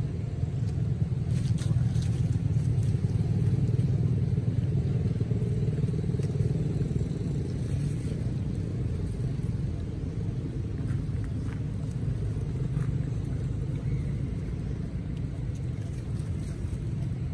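A steady low engine rumble, running unbroken, with a few faint light clicks now and then.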